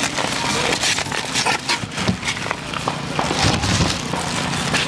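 Plastic bags and plastic food boxes rustling and crackling as they are handled, with many small irregular clicks.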